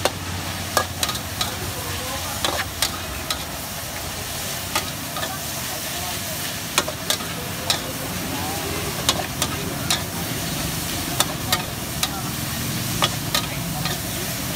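Metal spatula clanking and scraping against a wok as green vegetables are stir-fried over a gas burner, over a steady sizzle. The sharp clinks of the spatula come irregularly, about one a second.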